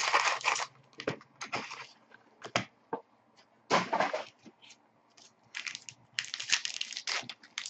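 Foil trading-card pack wrappers being torn open and crinkled, with cards handled: a string of short, irregular rustles and rips, busier near the end.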